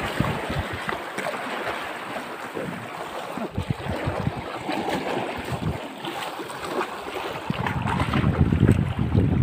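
Small sea waves splashing and washing over shoreline rocks, with wind buffeting the microphone; the low wind rumble grows stronger in the last second or so.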